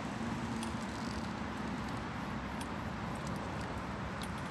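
Steady outdoor background noise, with a faint low hum that dies away within the first second and a few faint high ticks.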